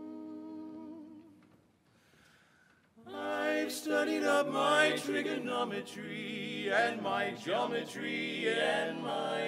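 Men's barbershop quartet singing a cappella in close harmony. A held chord dies away about a second in, there is a short pause, and the four voices come back in together about three seconds in.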